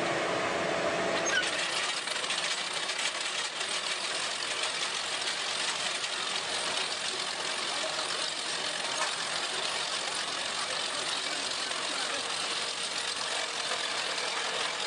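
Vermeer tracked chain trencher running with its digging chain cutting through soil: a steady, dense mechanical noise of engine and chain, with the engine tone clearer only in the first second or so.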